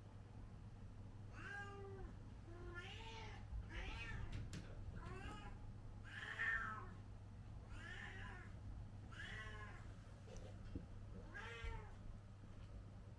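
A domestic cat meowing repeatedly: about eight separate meows, each about half a second long and rising then falling in pitch, spaced a second or so apart.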